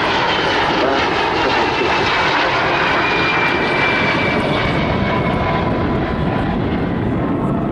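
A pair of de Havilland Vampire jets flying past, their Goblin turbojets making a steady rushing roar with a thin high whine that slides slightly down in pitch. The sound dulls as the two aircraft draw away.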